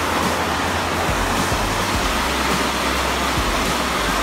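Waterfall's steady, unbroken roar of falling water.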